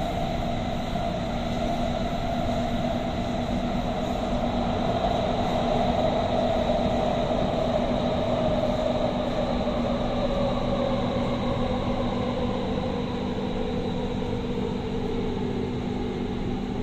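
Doha Metro train running through a tunnel, heard from inside the passenger car: a steady rumble of wheels on rail, with a whine that slowly falls in pitch over the second half.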